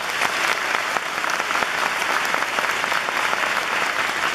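Audience applauding: many hands clapping in a dense, even stream.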